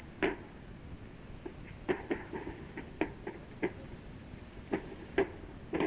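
Ammunition cooking off in a burning ammo dump: an irregular series of short, sharp pops and cracks, about ten in six seconds.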